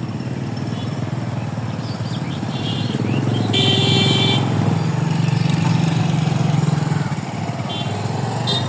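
Motorcycle engine running close by, growing louder through the middle and fading again, with a short horn beep about three and a half seconds in.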